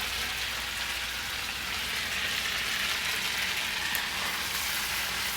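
Food frying in a hot pan: a steady, even sizzle.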